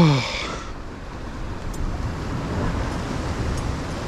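Sea surging against the rock ledge below, with wind on the microphone: a steady rushing noise.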